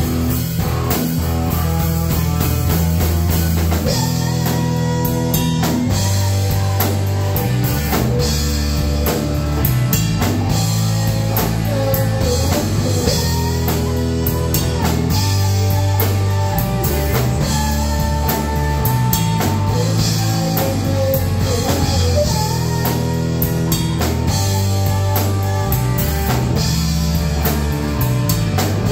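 Live rock band playing: electric guitar, bass guitar and drum kit together, with a steady drum beat under sustained bass notes.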